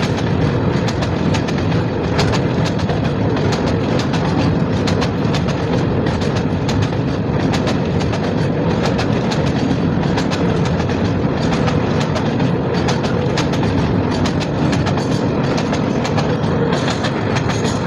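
Container freight train's wagons rolling by on the rails: a steady rumble with a constant, irregular clatter of wheel clicks and knocks over the rail joints.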